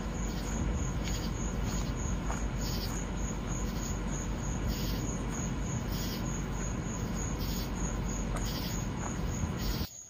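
Steady road and tyre noise heard inside a moving car's cabin, a low even rumble. It cuts off suddenly just before the end.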